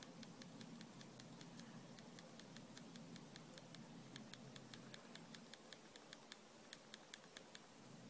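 Faint, rapid clicking of a BlackBerry phone's button pressed over and over by thumb, about five clicks a second. The presses are meant to clear the steady red LED of a BlackBerry that won't turn on.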